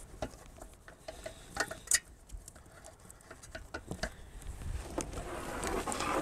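Rummaging in an RV's pass-through storage bay: scattered clicks and knocks of gear being shifted, with a sharper knock about 2 seconds in and another about 4 seconds in. Near the end there is a rustle of fabric as a round nylon-cased collapsible garbage can is pulled out.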